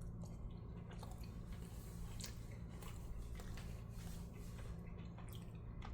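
A person faintly chewing a mouthful of chicken meatball in sauce, with soft, irregular wet clicks, over a low steady hum.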